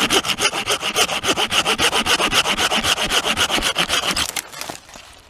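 Hand pruning saw cutting through a resinous conifer branch, in fast, even back-and-forth strokes of about five a second that stop about four and a half seconds in.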